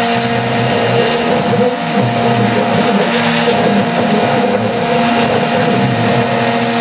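Hitachi router on a CNC machine running at speed, its straight bit milling a pocket into a cedar board: a steady motor whine over the noise of the cut.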